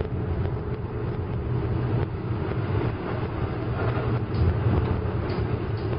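Steady low engine and road rumble of a car driving slowly, heard from inside the cabin.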